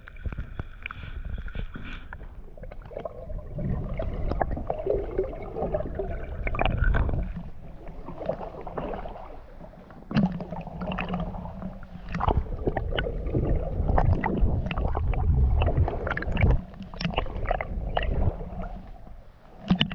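Water sloshing and gurgling around a kayak, with a low rumble and many irregular clicks and knocks.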